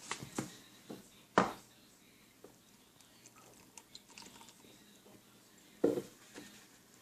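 Scattered short knocks and clicks from objects being handled: a cluster in the first second and a half with the loudest knock in it, a few faint ticks in the middle, and another sharp knock near the end.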